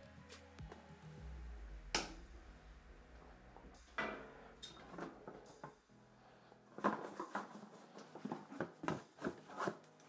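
Handling noise from a dirt bike's front wheel being taken out of its steel shipping frame, with its cardboard packing: scattered knocks, a sharp one about two seconds in, then a busy run of clattering and rustling near the end.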